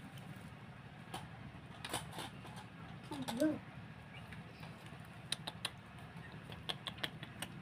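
Small wet clicks and smacks from a baby squirrel suckling and licking milk at a syringe's rubber teat, scattered irregularly, with a brief low murmur a little over three seconds in.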